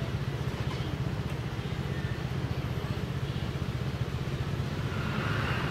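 Motor scooter engine idling, a steady low hum with rapid even pulsing.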